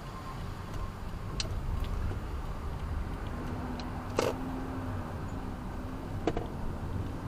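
Steady low rumble of road traffic, with a sharp knock about four seconds in and a lighter one a couple of seconds later.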